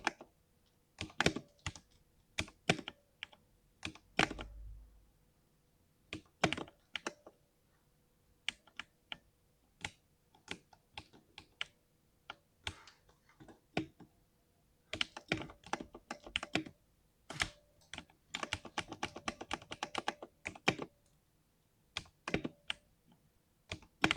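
Typing on a 60% mechanical keyboard with a deep 'thock' keystroke sound: clicks come in irregular bursts with short pauses, with a fast, dense run of typing about three quarters of the way through, and a brief low thud about four seconds in.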